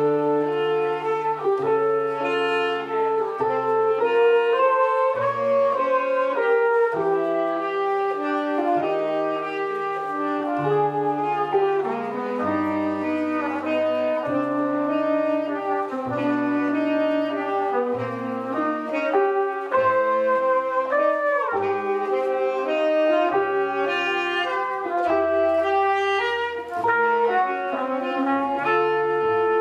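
Small jazz band playing live: trumpet and saxophone play the melody together in harmony in held notes, over upright bass notes underneath.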